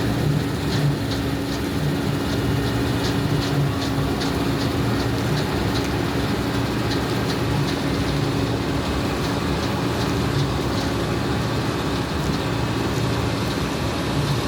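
John Deere 9610 combine running at work in wheat: a steady machine drone with a held tone, a pulsing low hum and a regular light ticking of about three ticks a second.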